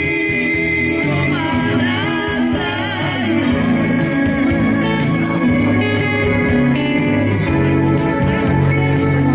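Live Romani band music, amplified through a PA: electronic keyboards over a steady dance beat, with a man singing.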